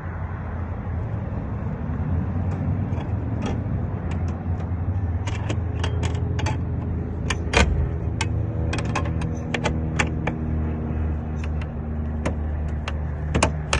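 Irregular sharp metallic clicks and taps of tools working the car door's lock linkage. They come thicker in the second half, over a steady low vehicle rumble.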